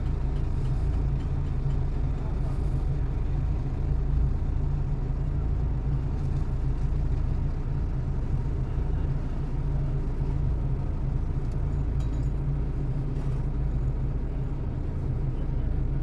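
Ford Transit diesel engine idling, a low and steady sound with no change in speed; the van runs again after its fuel pump was replaced.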